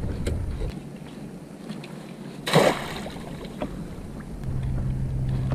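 A crab hoop net splashes into the sea once, sharply, about halfway through, dropped from a kayak. Around it come small clicks and rustles of rope and net being handled.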